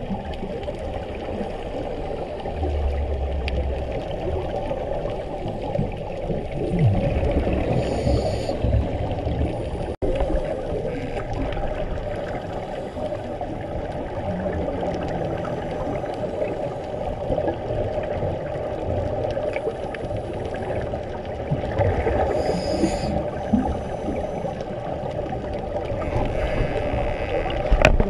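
Scuba diving sounds heard underwater: a diver's regulator breathing, with a short hiss on the inhale twice, and a steady bubbling, gurgling rumble from exhaled bubbles and moving water between breaths.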